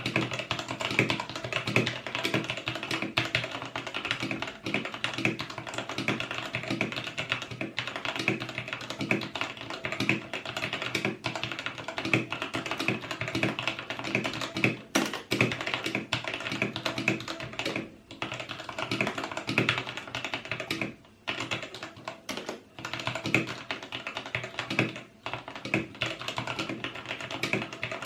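Typing on a Vortex VX5 60% mechanical keyboard with Outemu switches: a dense, continuous run of key clacks with a few brief pauses, over background music.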